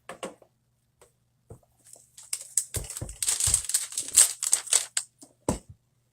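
Small phone parts being handled on a workbench: a few separate clicks, then a dense run of rapid clicking and crinkling for about three seconds, and a sharp knock near the end.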